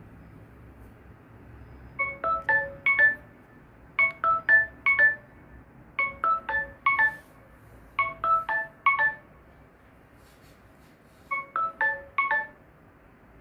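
Samsung Galaxy phone playing a xylophone-style alert tone through its speaker. Short runs of four or five quick mallet-like notes come about every two seconds, five runs in all, with a longer pause before the last.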